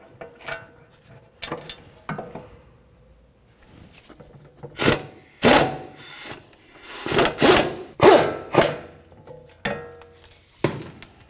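Ratchet driving a socket on an extension to back out the 18 mm bolts that hold the wheel bearing hub to the rear knuckle. The ratcheting comes in a series of short, irregular bursts, with quieter clinks of the tool being handled in between.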